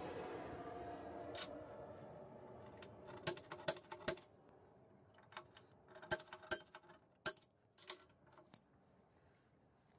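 Steel ball-bearing drawer slide being worked by hand: a rolling whir that fades away over the first couple of seconds, then a series of sharp metal clicks and clinks as the rails are pushed and the slide is pried with a pointed tool.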